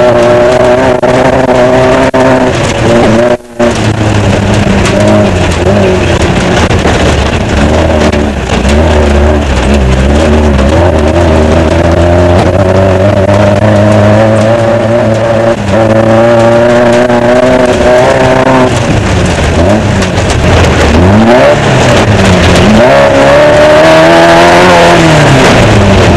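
Off-road desert race car's engine running hard under way, heard from on board, its note holding steady for long stretches and then dropping and climbing several times near the end as the revs swing with the terrain. The sound cuts out for a split second about three and a half seconds in.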